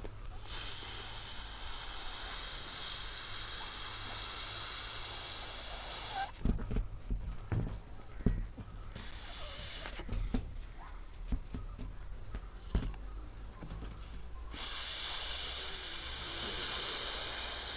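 Breathing nitrous oxide in and out of a rubber balloon held to the mouth: long steady hissing rushes of gas through the balloon's neck, broken in the middle by several seconds of short breaths and soft knocks of the balloon being handled.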